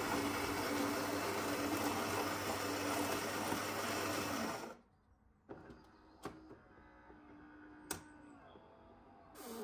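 Philips fully automatic espresso machine grinding coffee beans, the grinder running steadily and then stopping about halfway through. A few sharp clicks and a faint hum follow from inside the machine, and another machine sound starts near the end as the brewing cycle continues.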